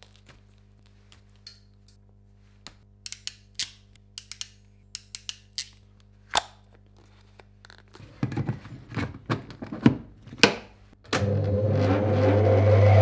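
Sharp clicks and snips of wire cutters trimming cable cores and a plastic three-phase plug being assembled, with knocks of handling about eight seconds in. About eleven seconds in a rotary phase converter switches on and runs with a loud steady hum, the loudest sound here.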